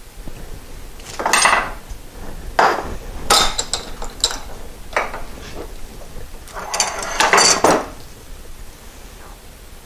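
Metal tools and small metal parts clinking and clattering as they are handled, in a series of irregular bursts, some with a brief metallic ring.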